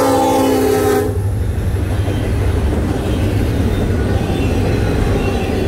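An SD70M-2 diesel locomotive's K5LLA horn sounds a chord and cuts off sharply about a second in as the locomotive passes close by. After that comes the steady noise of double-stack intermodal well cars rolling past on the rails.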